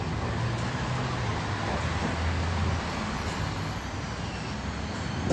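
Interior running noise of a 71-605A tram in motion: a steady rumble of wheels on rails and running gear, with a low hum that swells at times and a sharp click near the end.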